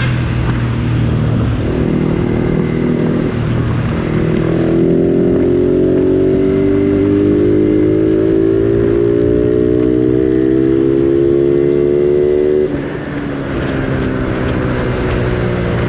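Yamaha Sniper 135 motorcycle with a stock-type Replica Pro exhaust pipe. The engine note holds steady, then about four seconds in the revs climb slowly and evenly for about eight seconds under throttle, and drop off abruptly near the end.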